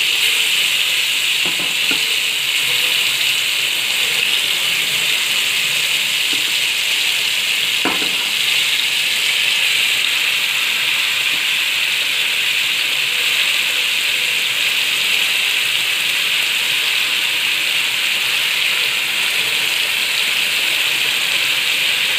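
Marinated fish pieces shallow-frying in a little oil on an iron tawa: a steady sizzle, with a few soft taps about two seconds and eight seconds in as pieces are laid in the pan.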